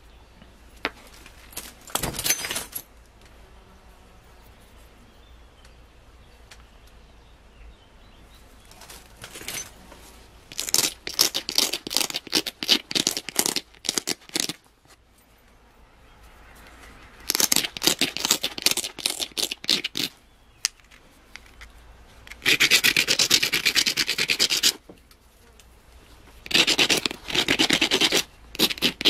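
Flint flake's edge being rubbed with a coarse stone abrader in quick back-and-forth strokes, a rasping scrape. It comes in several bursts of one to four seconds with short pauses between.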